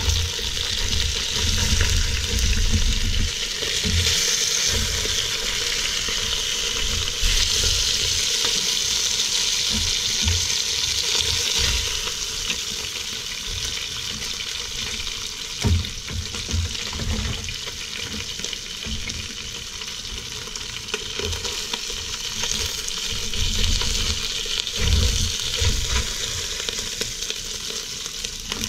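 Breaded trout pieces sizzling in hot oil in a deep pot, with knocks and scrapes of a slotted spatula against the pot as the pieces are turned and lifted out. The sizzle is strongest in the first half and thins out as the pot empties, with one sharper knock about halfway through.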